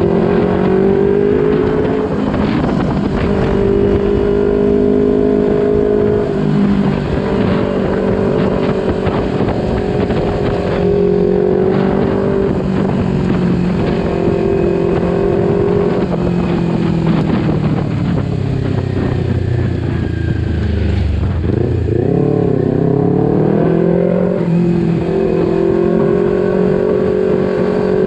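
Kawasaki Ninja 250 FI parallel-twin engine with an R9 aftermarket exhaust, heard while riding: it holds steady cruising revs, the pitch drops about twenty seconds in and then rises again as the throttle opens.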